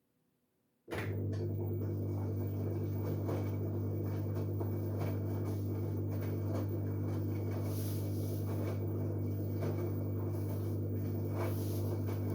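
LG Direct Drive 8.5 kg washing machine giving a loud, steady electrical hum with a crackly, watery noise above it. It switches on suddenly about a second in and cuts off abruptly near the end, the way a drain pump or fill valve runs for a spell during the cycle.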